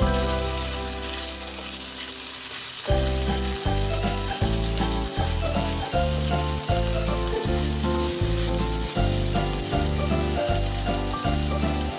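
Pork slices sizzling in hot oil in a nonstick frying pan while being stirred with a wooden spatula, a steady hiss. Background music plays over it, a held low note fading at first and then a steady beat from about three seconds in.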